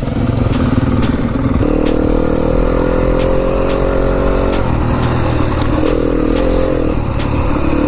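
Enduro dirt bike engine running as the bike rides off along the trail, its pitch stepping up and down several times with the throttle. Light clicks and clatter run through it.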